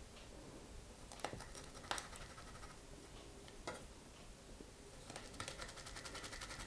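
Faint clicks and taps of a small plastic cookie cutter being pressed into and lifted out of soft shortcrust pastry in a metal springform pan: a few single sharp clicks, then a quick run of fine rapid ticks near the end.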